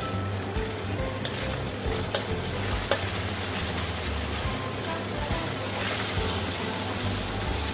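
Food sizzling in hot oil in a pan as it is stir-fried, with a utensil clicking against the pan a few times.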